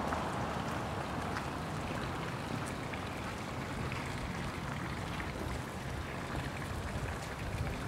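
Steady rain ambience on a wet street: an even hiss with scattered light drop ticks and a low rumble underneath.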